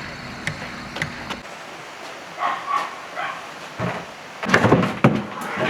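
A dog barking several times, the loudest barks coming in a quick run about four to five seconds in.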